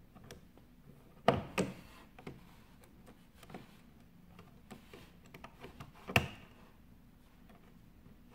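Sharp plastic clicks and small taps of wire connectors and wiring being handled and fitted back onto a coffee machine's power board. Two loud clicks come close together about a second and a half in, another near the end, with fainter ticks between.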